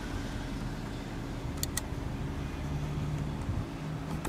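Two short clicks of the overhead console buttons being pressed, one about a second and a half in and one near the end, over a steady low hum in the car's cabin.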